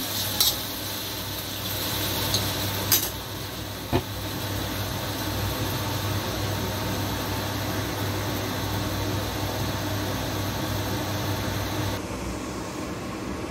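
Steady fan-like hum and hiss over a steel wok of chicken wings and potatoes cooking on the stove, with three sharp clinks of the spatula against the wok in the first four seconds.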